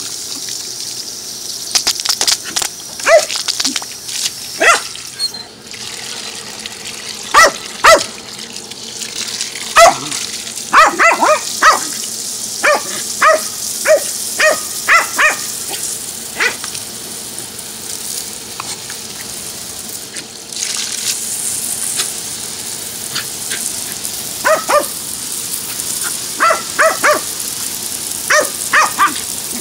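Jack Russell terrier barking and yipping at the spray from a garden hose, in quick runs of short barks with a lull of several seconds in the middle. The hose spray hisses steadily underneath.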